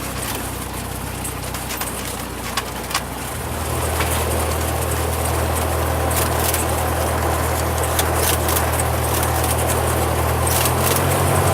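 Cessna 172's piston engine running at low rpm on the ground, its pitch and loudness stepping up about three and a half seconds in as the power is raised, with a couple of short clicks just before.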